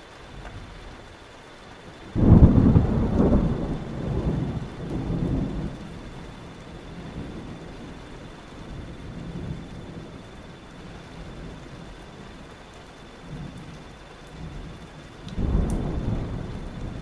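Thunderstorm: steady rain throughout, with a sudden clap of thunder about two seconds in that rumbles on for several seconds. A second, lighter roll of thunder comes near the end.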